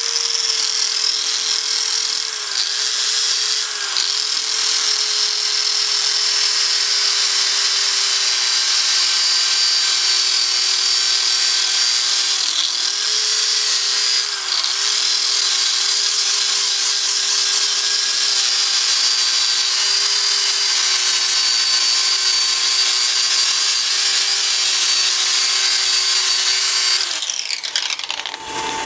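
Angle grinder with a sanding pad running with a steady whine while sanding a wooden wand on the lathe. Its pitch sags briefly a few times under load, and it cuts off near the end.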